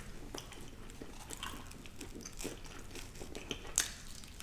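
A person chewing and biting food close to the microphone: a scatter of soft, irregular clicks, with one sharper click near the end.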